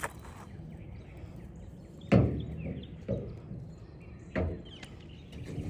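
Three sharp knocks or thumps, about a second apart, the first the loudest.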